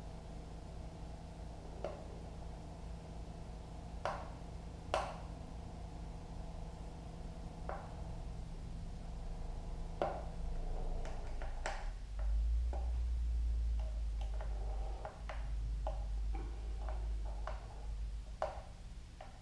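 Hex key and small screws clicking and ticking against a motorcycle windscreen's plastic mounting bracket as the screen bolts are tightened, in scattered sharp clicks. A low hum drops out about halfway, and a low rumble follows for several seconds.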